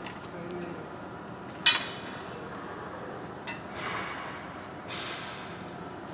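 A single sharp metallic clink that rings briefly, about a second and a half in, over a steady background hiss; near the end, a short hissing burst with a thin high tone.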